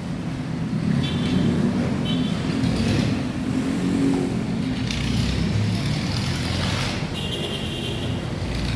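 A motor vehicle's engine running steadily, with a low hum.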